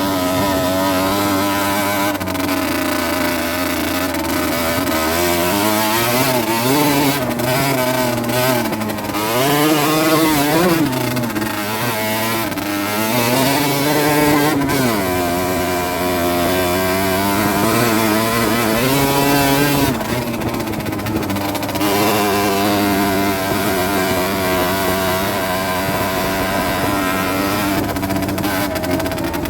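Rieju Drac 50's two-stroke 50cc engine under way, revving up and down several times in quick sweeps through the middle, then running steadier with smaller rises and falls later on.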